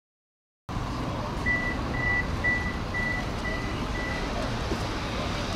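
Six short, even, high beeps, about two a second, over the steady rumble of a tram interior: a tram's door warning signal at a stop. The sound cuts in abruptly under a second in, after dead silence.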